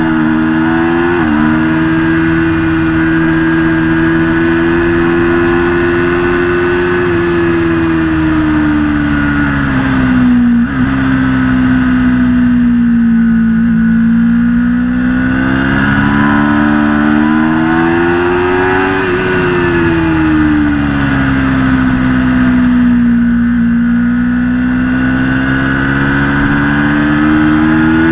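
Aprilia Tuono V4 motorcycle's V4 engine at high revs on track, its pitch holding, sinking slowly and climbing again several times, with quick jumps in pitch at gear changes, one about a second in and another about ten seconds in.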